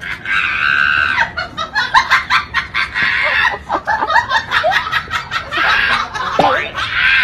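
Hard, high-pitched laughter in quick cackling bursts, mixed with shrill squeals and shrieks.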